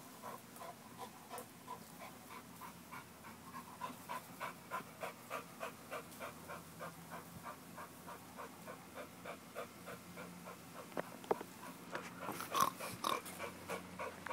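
American bulldog panting quickly and rhythmically, about three to four breaths a second, winded from exercise. A few louder, sharper sounds come near the end.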